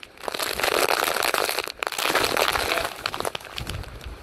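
Hurricane wind and heavy driving rain, the wind buffeting the microphone into a dense crackling rush, with a deeper rumble of a gust building near the end.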